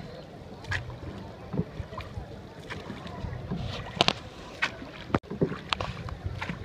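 Sounds of a boat on the river: irregular sharp knocks and splashes over a steady background of water and air, with faint distant voices.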